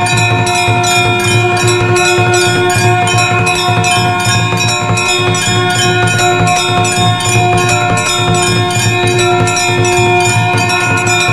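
Temple bells rung rapidly and without a break, about five strikes a second, over a steady ring of overlapping bell tones.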